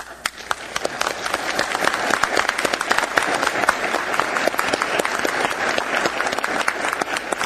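Audience applauding: many people clapping, building over the first two seconds and then holding steady.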